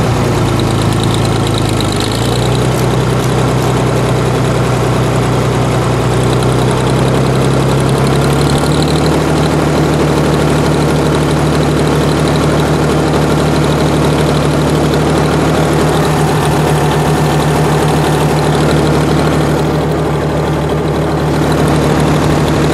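1946 Oliver 70 row-crop tractor's six-cylinder engine running steadily as it drives along, heard close to its upright exhaust stack. The engine note steps up in pitch about two seconds in and again about eight and a half seconds in.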